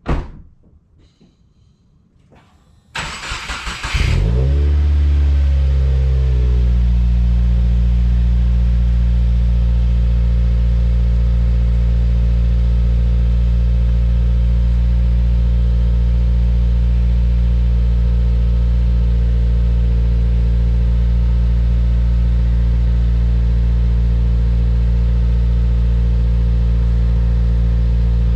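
A thump, then about three seconds in the starter cranks briefly and the 2016 Subaru WRX's turbocharged flat-four catches. It flares in revs, then over a couple of seconds it settles into a steady idle through a freshly installed Cobb titanium cat-back exhaust.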